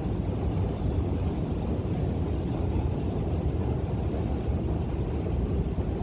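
Steady low rumble of a long descending escalator in an underground station hall, even throughout with no clatter or breaks.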